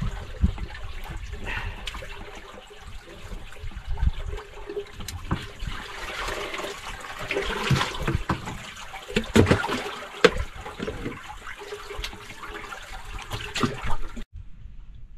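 Seawater splashing and sloshing against the side of a small outrigger boat as hands work in the water over the side, with scattered knocks.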